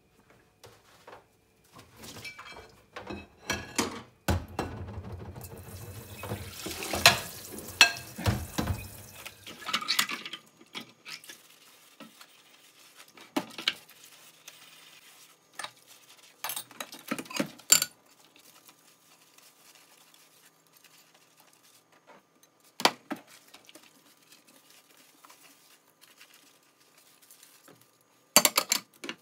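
Dishes being washed by hand in a stainless steel sink: a soapy sponge scrubbing a frying pan and plates. About four seconds in comes a few seconds of denser scrubbing and water noise, and after that there are only scattered clinks and knocks of plates and pans against each other and the sink.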